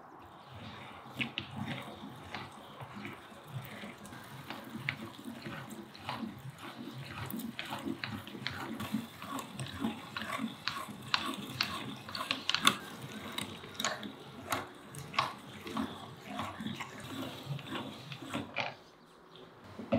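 Hand-cranked metal meat grinder being turned, mincing onion: an irregular run of crunches and clicks that stops shortly before the end.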